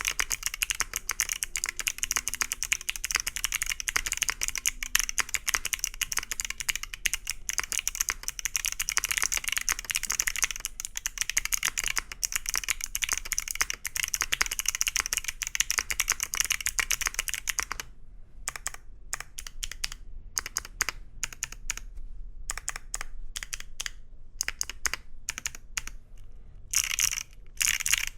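Mechanical keyboard with Wuque Studio BigLucky clicky switches in an aluminum plate being typed on, giving sharp, crisp clicks. Steady fast typing for most of the time, then slower, separate keystrokes with short pauses, and a quick flurry near the end.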